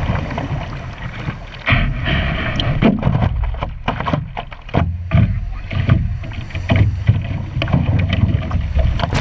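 Whitewater rushing around a surfboard riding a small wave, then, from about two seconds in, irregular sloshing and slapping of small waves against the board as it floats in the shallows.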